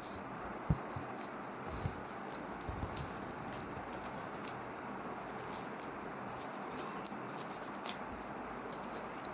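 Small scrapes, rustles and light taps of a tight cardboard box being worked open by hand, over a steady background hiss.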